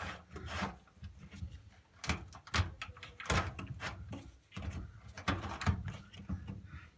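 Plastic drain filter plug of an Indesit IWB5113 washing machine being twisted back and forth by hand, giving irregular clicks, knocks and scrapes. It keeps catching on something jammed inside the filter, which turns out to be hair clips.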